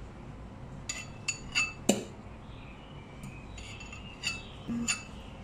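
Metal fork clinking and tapping against a ceramic bowl of beaten egg as the froth is skimmed off: about eight light, irregular clinks starting about a second in, the loudest at about two seconds.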